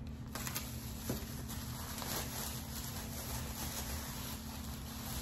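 Faint rustling and light handling noises as small packaged items are moved about on a table, with a small click about a second in, over a steady low hum.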